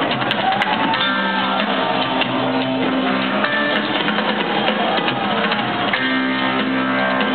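Live rock band playing, recorded from the audience: guitar lines over the band's bass and drums.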